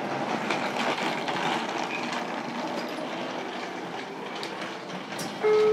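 Running noise heard inside a JR Kyushu 303 series electric multiple unit's motor car as it pulls away from a station, with the rumble of wheels and motors. Near the end, a loud steady tone suddenly cuts in.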